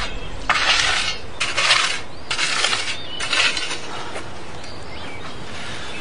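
A shovel digging into loose earth and throwing it onto a grave: four scraping strokes about a second apart, then quieter.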